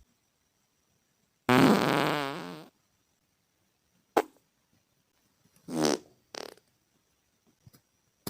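Human farts, several separate ones: a long buzzing one lasting over a second, a short sharp one about four seconds in, and two more close together around six seconds.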